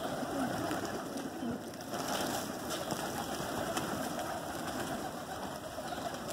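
A large flock of domestic pigeons feeding and cooing, with wings fluttering as birds land among them.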